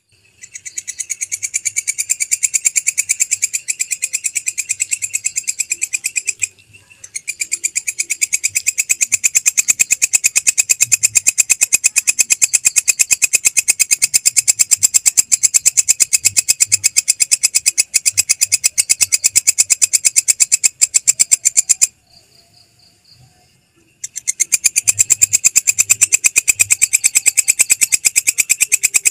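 Belalang kecek katydid (bush cricket) stridulating: a fast, even train of high, buzzy ticking pulses. It breaks off briefly about six and a half seconds in and again for about two seconds near the end, then resumes.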